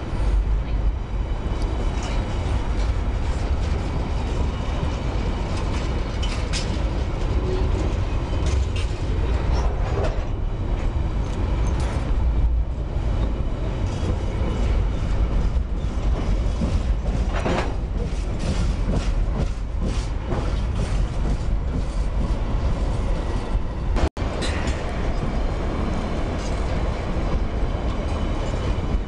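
Loaded covered hopper cars of a freight train rolling past close by at steady speed: a heavy, continuous rumble of wheels on rail, with scattered sharp metallic clanks and squeals. The sound drops out for a split second near the end.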